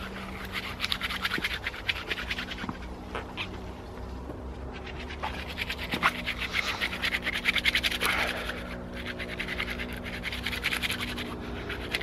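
Hands rubbing crushed horse chestnut leaves together with a little water, working them into a soapy lather. The rubbing comes in three spells of quick strokes.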